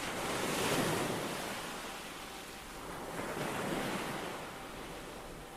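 Sea waves washing in as a rushing surf noise that swells twice, about a second in and again near four seconds.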